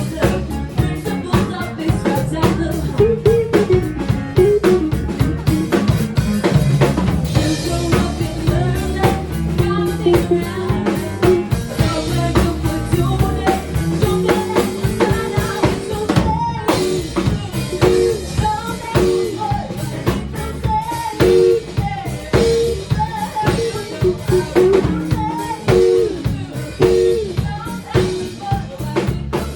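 A rock band plays live, with the drum kit keeping a steady beat of bass drum and snare under melodic parts and a singing voice.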